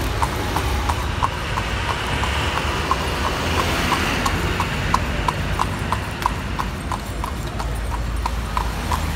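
Shod hooves of a carriage horse clip-clopping on an asphalt street in an even rhythm, about three hoofbeats a second, with the low rumble of city traffic underneath.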